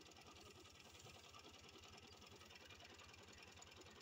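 Farm tractor engine idling steadily, a faint even low chugging.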